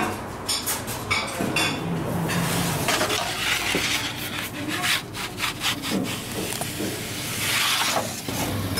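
Long-handled baker's peel scraping and sliding across the stone floor of a wood-fired oven as a pide is slid in and the peel is drawn back out, with scattered knocks.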